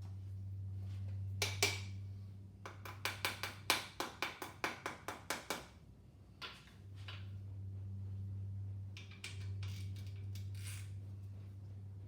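Quick sharp metallic clicks, about four or five a second for some three seconds, as a piston ring compressor is tightened around a piston before installing it in the engine, with a few single clicks before and after. A steady low hum runs behind.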